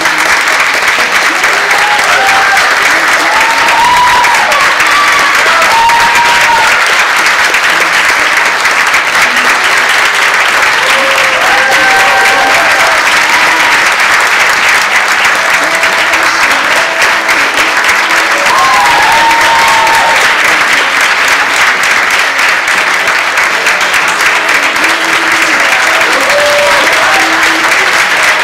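Audience applauding steadily throughout, with scattered short cheers and whoops rising above the clapping.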